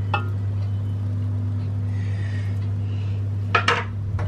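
Steady low engine hum of roadworks machinery, with a sharp knock near the start and a double knock about three and a half seconds in from a spoon against a steel cooking pot.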